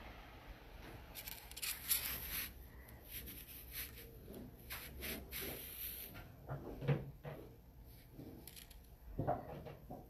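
Faint handling noises: fingers threading beading wire back through a small copper crimp bead and a button, with scattered small clicks and rustles.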